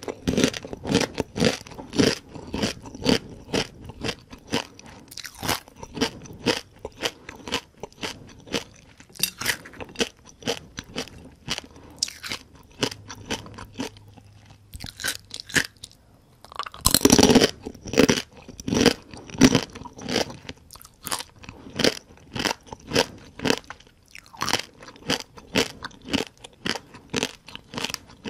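Close-up crunching and chewing of whole crispy fried rice-field crabs, the shells cracking in a steady run of sharp crunches about two a second, with a louder burst of crunching about two-thirds of the way through.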